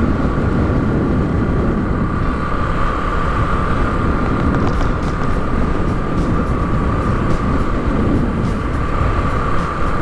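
Road traffic running steadily past: a low rumble with a constant high-pitched hum over it.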